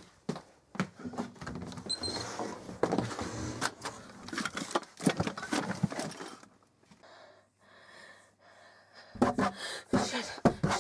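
A door being banged and rattled, with scuffling. The noise drops away for a couple of seconds after the middle, then starts again near the end.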